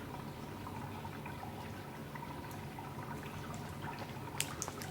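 Quiet indoor room tone with a steady low hum, and a few light clicks near the end.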